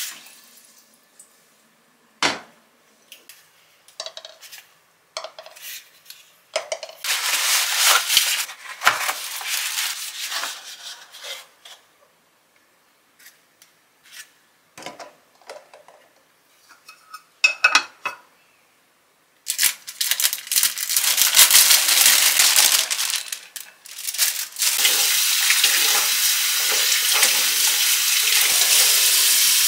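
Scattered light clicks and knocks of kitchen items and eggs being handled. From about twenty seconds in, a tap runs steadily into a stainless steel sink as green peppers are rinsed under the stream.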